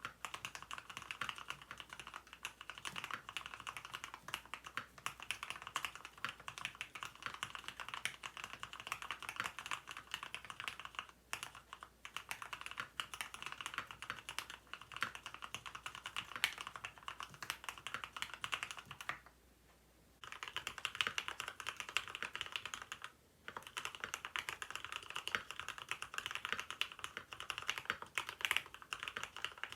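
Mechanical keyboard being typed on steadily, with fast, crisp key clacks that sound like droplets falling. The Poron plate foam has been removed, so the board rings a little more. The typing stops briefly a couple of times, with a pause of about a second two-thirds of the way through.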